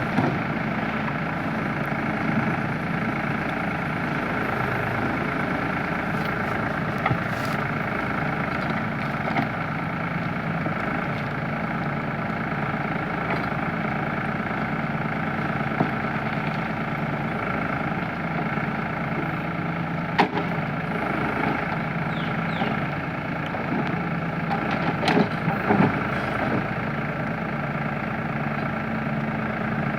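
Diesel engine of a tractor-mounted Bull Agri backhoe loader running steadily, with a few sharp knocks about twenty and twenty-five seconds in.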